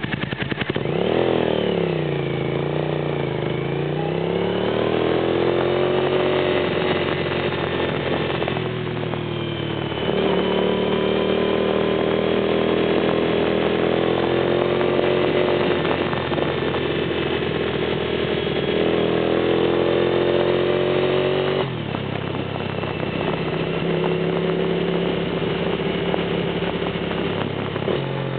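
Suzuki TL1000S 90-degree V-twin motorcycle engine under way on a winding road, its pitch rising and falling with the throttle through the bends. It drops off briefly about nine seconds in and again about twenty-two seconds in, then pulls on at a steadier pitch.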